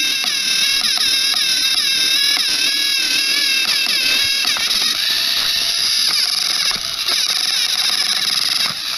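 Motors and plastic gears of battery-powered Thomas & Friends toy engines whining as two engines push against each other. The pitch wavers up and down, and there are light clicks.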